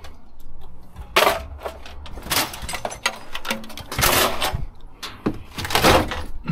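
Scrap electrical parts and loose wire being handled and shifted in a bin: irregular clattering and rustling in a few short bursts, over a low rumble.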